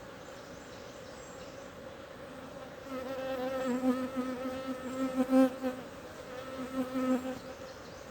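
Wild honeybees buzzing around their colony in a tree hole. About three seconds in, a single bee buzzes close by for about four seconds, louder and wavering in pitch, before it fades back into the steady hum of the swarm.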